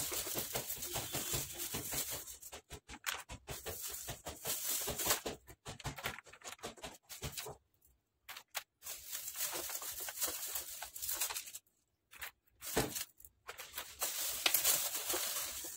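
Handling noise: strings of plastic pearl beads and a plastic bag rustling and clicking, in irregular spurts broken by short silences.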